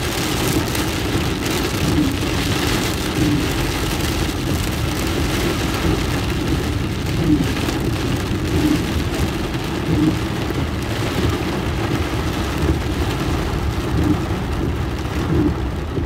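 Heavy rain drumming on a car's roof and windscreen, heard from inside the cabin, with the car's engine and tyres running on the flooded road underneath.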